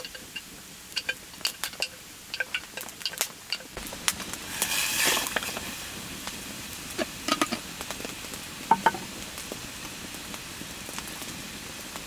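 Food sizzling in a pan over an open fire, with scattered sharp clicks and clinks. A louder rush of sizzling comes about four seconds in and lasts a second or so.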